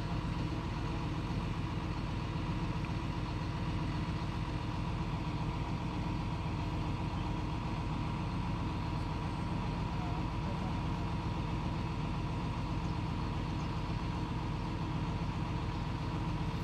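Engine of a truck-mounted crane idling steadily.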